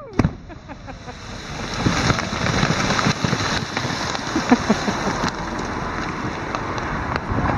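Aftermath of an ice-clearing blast on a frozen river: a steady rushing hiss of shattered ice and water spray raining back down, with scattered ticks of falling chunks. It swells in about a second and a half in.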